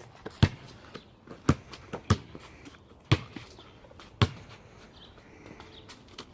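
A basketball being dribbled: five loud bounces about a second apart, sometimes quicker. They stop a little past four seconds in.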